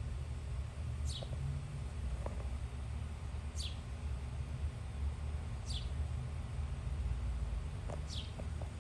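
Low wind rumble on the microphone, with a short, high bird chirp that falls in pitch, repeated about every two seconds.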